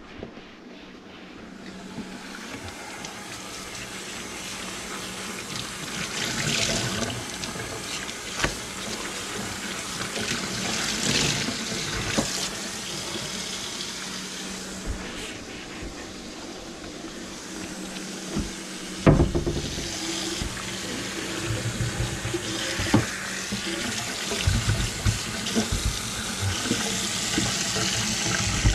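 Kitchen faucet running into a stainless steel sink, the water pouring down the drain to flush the drain line after its grease blockage was cleared. There are occasional knocks, and one sharp knock about two-thirds of the way through.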